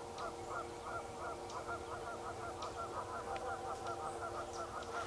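Animal calls: a fast, even run of short call notes, about four or five a second, over a steady faint drone.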